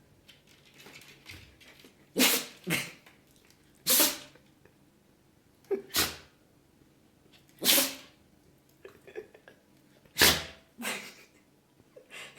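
Shiba Inu dog sneezing repeatedly: about five sharp sneezes roughly two seconds apart, several followed closely by a smaller second sneeze.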